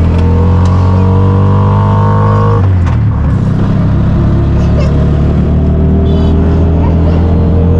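Motorised tricycle taxi (keke) engine running while riding in road traffic, with a rising engine whine that breaks off suddenly about two and a half seconds in, then steady running.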